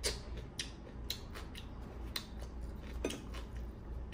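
Crisp fried puri being torn apart by hand: a string of irregular dry crackles and snaps.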